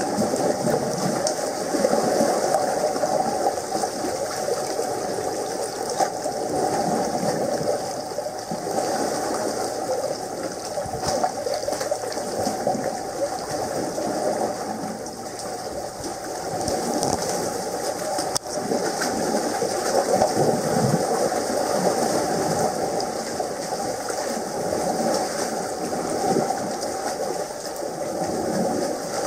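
Steady rush and splash of water in a narrow rock gully, a continuous noise without breaks.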